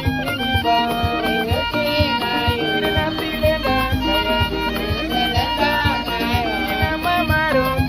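Background music with a steady beat and a bowed-string or fiddle-like melody.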